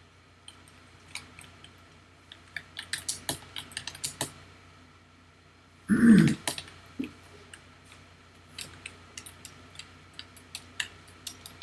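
Typing on a computer keyboard: scattered quick key clicks, in a dense run between about two and four seconds and again later. About halfway through, a brief low throaty vocal sound is the loudest thing.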